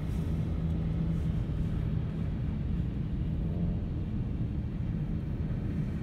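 Steady low rumble of a car driving on a highway, engine and tyre noise heard from inside the cabin, with a faint extra hum about three and a half seconds in.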